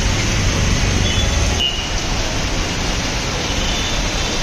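Heavy monsoon rain pouring down in a steady, loud hiss, mixed with the running of auto-rickshaws and other street traffic.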